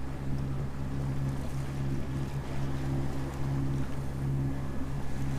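Sailboat's inboard diesel engine running steadily while motoring, a constant low hum, with a hiss of wind and water over it.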